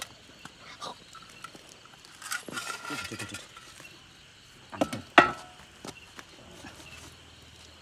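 Metal shovel scraping and knocking against a fire-hardened lump of baked earth and the ground, with a louder metallic clank about five seconds in that rings briefly.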